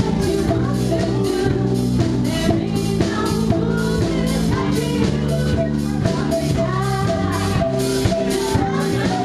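Live band playing a song: a woman singing lead into a microphone over guitar, bass guitar and a drum kit keeping a steady beat.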